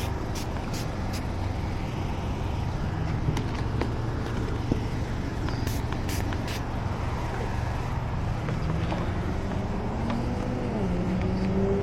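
A vehicle engine idling steadily with a low hum, with scattered light clicks over it. Near the end, an engine note rises in pitch.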